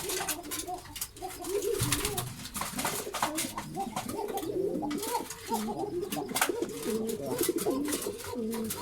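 Several domestic pigeons cooing at once, overlapping low warbling coos that run on without a break, mixed with many sharp clicks and a low thump about two seconds in.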